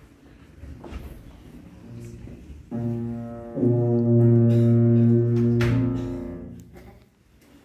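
Tuba playing low, long notes: one note begins a few seconds in, moves to a second held note about a second later, and dies away shortly before the end.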